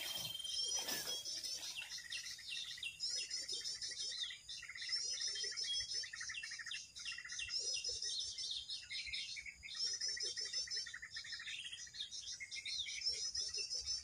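A dense, unbroken chorus of small songbirds chirping and twittering, many high calls overlapping with no break, with a softer, lower call now and then. There is a brief rustle in the first second.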